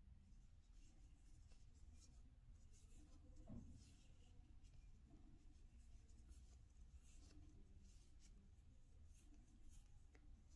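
Near silence with faint, irregular rustling and scratching as yarn is drawn through stitches with a metal crochet hook. There is one soft knock about three and a half seconds in.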